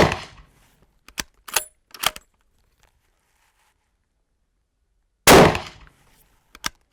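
Two shots from a Haenel Jaeger 10 Pro bolt-action rifle in .30-06, one right at the start and one about five seconds later. After each shot come three quick metallic clicks, about half a second apart, as the bolt is worked to chamber the next round.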